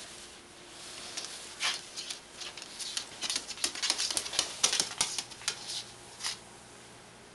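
A cockatoo's claws and beak clicking and scraping on a hard floor and a cloth towel: an irregular patter of small sharp taps, thickest in the middle few seconds.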